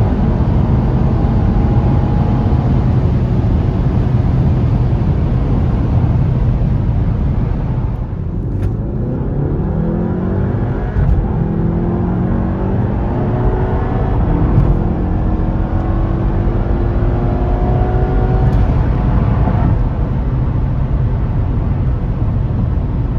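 2017 VW Golf R's turbocharged EA888 four-cylinder engine under way on a test drive, with steady road noise. About eight seconds in the revs drop, then rise and fall several times as the car accelerates. The engine has new colder spark plugs and APR ignition coil packs, fitted to cure a cylinder-3 misfire.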